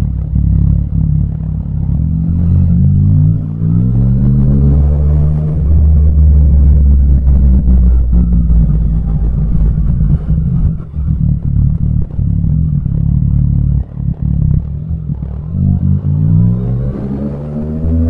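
Yamaha MT-09's inline three-cylinder engine under way. It revs up with rising pitch from about two seconds in, holds a steady pitch while cruising, and revs up again near the end.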